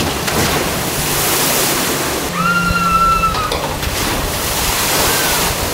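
Log flume water rushing and splashing steadily as a boat slides down the drop and ploughs into the pool at the bottom, throwing up spray. About two and a half seconds in, a high held tone lasting about a second sounds over the water.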